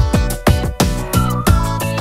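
Upbeat electronic music with a steady drum beat and a high melody line over it.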